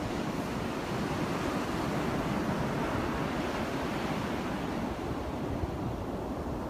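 Steady rush of strong wind buffeting the microphone, mixed with ocean surf.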